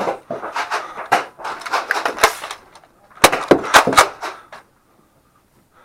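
Nerf foam-dart blasters firing a quick series of sharp shots, with a louder cluster about three seconds in, then stopping.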